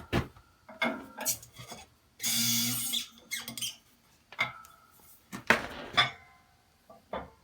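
Metal parts of a hydraulic shop press and its steel and aluminium blocks clanking and clinking several times as the press is backed off and the work is handled, with a short rushing noise a little over two seconds in.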